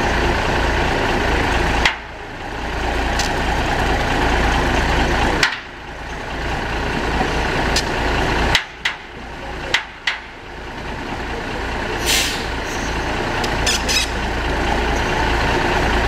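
A vintage heavy logging truck's engine running steadily, with a few sharp clanks and a short hiss about twelve seconds in. The sound breaks off abruptly several times.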